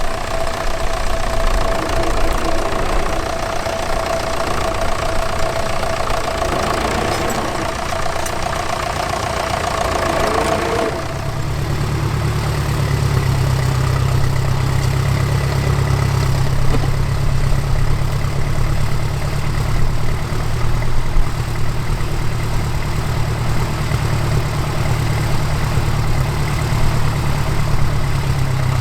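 Tractor engines running. About eleven seconds in the sound switches abruptly to a deeper, steady engine note.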